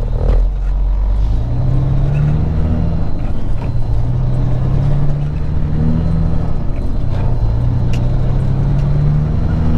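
Peterbilt 379 truck's diesel engine pulling away. The revs climb, then drop back with each of several gear changes as the truck gathers speed.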